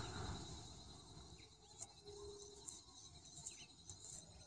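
Near silence: faint rural evening ambience, with a few brief, faint high chirps scattered through it.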